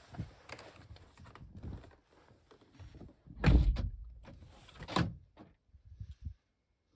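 Car door of a 2002 Volvo S60 shutting with a heavy thunk about three and a half seconds in, then a sharper knock about a second and a half later, amid light handling clicks.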